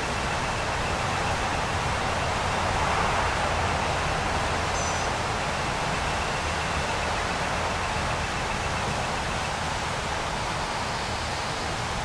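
Steady, even hiss of outdoor background noise. A faint high thin tone sits in it and fades out about three quarters of the way through.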